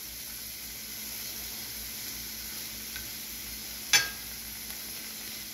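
Teriyaki-glazed SPAM slices sizzling steadily on a steel flat-top griddle. About four seconds in, the metal spatula gives one sharp clink against the griddle.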